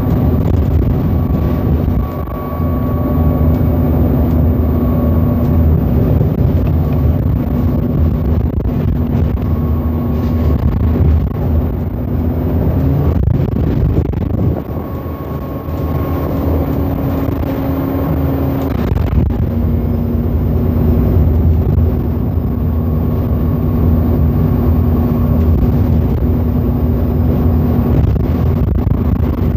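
Alexander Dennis Enviro400 double-decker bus driving, heard from inside the passenger cabin: a steady low engine drone with a humming tone that shifts in pitch several times, with brief dips about 2 and 14 seconds in.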